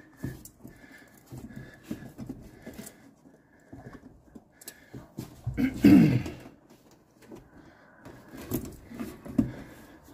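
Plastic heater housing being pushed and worked into place against a car's firewall: scattered light knocks, clicks and rubbing from the plastic case and hands, with a louder creak falling in pitch about six seconds in.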